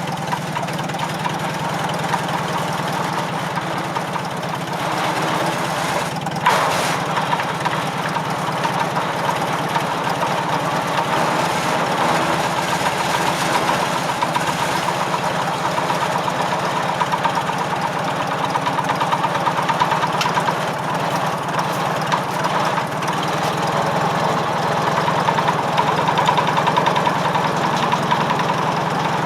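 The four-cylinder engine of a 1945 McCormick W4 tractor runs steadily, driving a firewood circular saw. A single sharp knock comes about six and a half seconds in.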